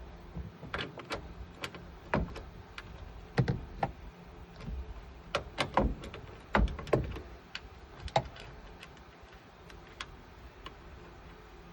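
Irregular clicks and knocks of parts and tools being handled during work on a car door's power window mechanism, coming in quick clusters and thinning out after about eight seconds.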